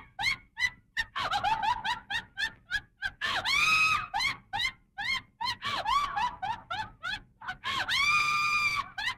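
A hen cackling: a quick run of short, high-pitched clucks broken by two long drawn-out squawks, one about three seconds in and one near the end.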